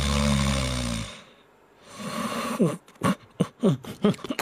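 A sleeping Shiba Inu puppy snoring: one long, loud snore in the first second, then a softer breath about two seconds in. Near the end comes a quick run of short clicks and brief sounds.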